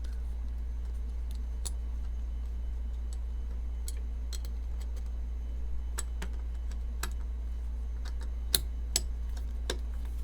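Small metal folding-knife parts and screws clicking and tapping as the knife is handled during reassembly: scattered light clicks, with two sharper, louder ones near the end, over a steady low hum.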